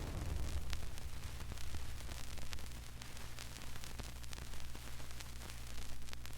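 Old vinyl record surface noise: a steady low hum with hiss and scattered crackles and ticks, with the last of a big blast's rumble fading out at the start.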